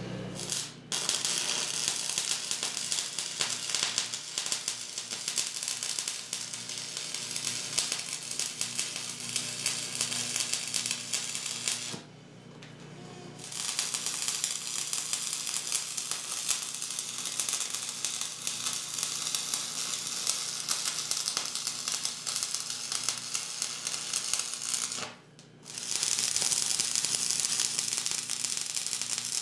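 Arc welding on steel: the steady crackle and sizzle of the welding arc. It starts about a second in and runs as three welds, stopping briefly twice between them.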